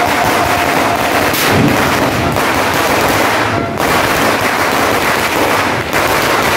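A long Filipino firecracker string (a 'sinturon ni Hudas', 5,000 rounds) going off in a continuous, rapid rattle of bangs.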